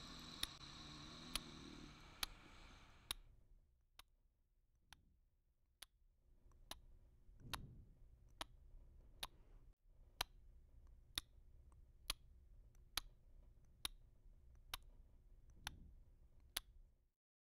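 Big Ben Moon Beam alarm clock ticking: single faint, sharp ticks evenly spaced a little under a second apart.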